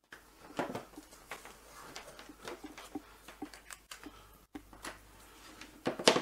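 Handling noise of a power cable being plugged into a label printer and its power adapter brick moved on a wooden desk: scattered rustles and light clicks and knocks, with a louder knock just before the end.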